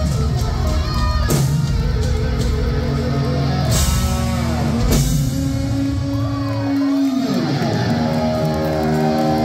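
Glam metal band playing live through a loud PA: distorted electric guitar with held notes and pitch bends over drums, with a few sharp hits. About seven seconds in, a long held note dives in pitch, and sustained chords follow.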